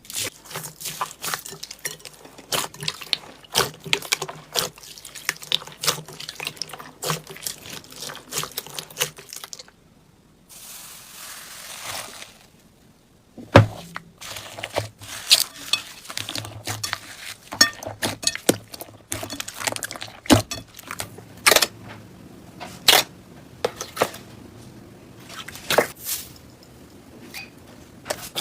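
Slime being squished and stretched by hand, with many sharp, sticky clicks and pops. The clicking pauses about ten seconds in, and a short steady hiss follows before the clicks resume.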